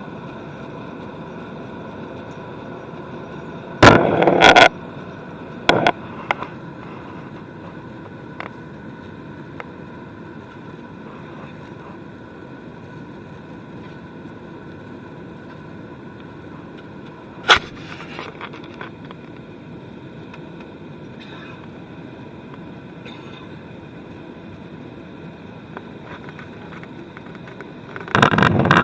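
Steady drone of an aircraft's engines with a few faint steady tones in it, broken by short loud rustles or knocks: one about four seconds in, a smaller one soon after, one midway and one at the very end.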